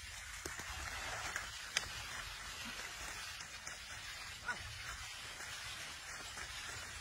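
Muddy water splashing and sloshing as a pair of oxen and a plough wade through a flooded rice paddy, with two short sharp clicks, the louder about two seconds in.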